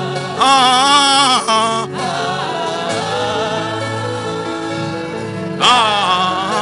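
Gospel-style worship music: a singing voice in two phrases, one near the start and one near the end, over sustained held chords.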